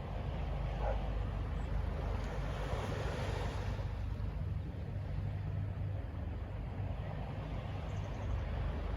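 Distant city ambience: a steady low traffic rumble under a wash of noise that swells and fades a few seconds in.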